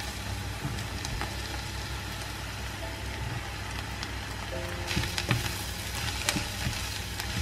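Sliced button mushrooms frying in butter with softened onion and garlic in a small saucepan, a steady sizzle. A few light knocks and scrapes come about five to six seconds in, as the last slices are scraped off a plate and a silicone spatula stirs the pan.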